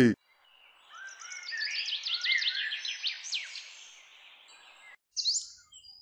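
Birds chirping: a dense run of quick rising and falling calls that swells and then fades out about five seconds in, followed by one short rising chirp.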